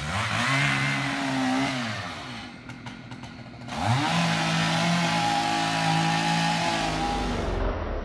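Chainsaw revved to full speed twice: the engine climbs, holds for a second or two and drops back, then climbs again a little under halfway through and holds steady for about four seconds before dropping near the end.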